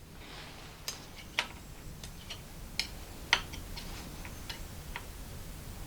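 Light metallic clicks and taps, about a dozen at irregular intervals, as a small steel workpiece and tools are handled at a metal lathe, likely while the part is fitted back in the chuck. A faint low hum runs beneath.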